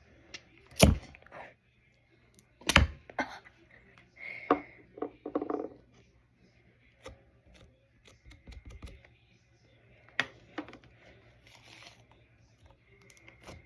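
Slime being squished and poked by hand, with several sharp pops and clicks and softer crackling in between.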